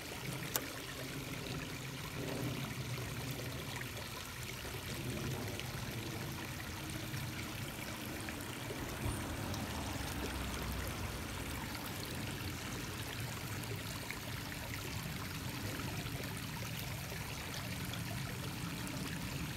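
Stream water running steadily, an even rushing flow. A single sharp click about half a second in.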